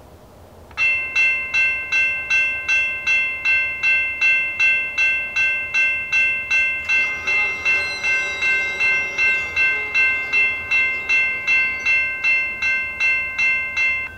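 Railroad grade-crossing warning bell ringing in rapid, even strikes, a little over two a second, as the crossing signals activate and the gates lower. It starts abruptly a moment in and cuts off suddenly near the end, once the gates are down.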